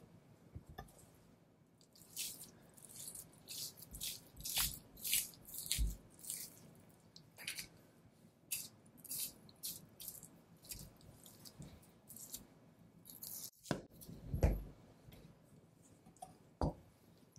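A butcher's knife slicing fat and sinew off a Wagyu beef knuckle, in short, irregular hissing strokes, a couple a second. Two dull thumps stand out, about six seconds in and near the end.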